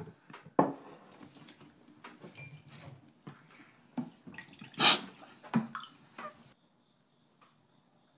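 A young man crying: broken sobs, sniffs and catches of breath, the loudest about five seconds in, dying away about six and a half seconds in.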